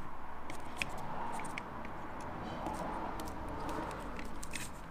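Allen key turning a screw into a plastic door handle: scattered faint small clicks over a steady background hiss.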